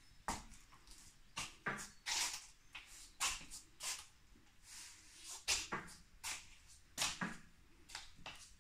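Footsteps on a hard indoor floor, about two a second, each a short scuffing step.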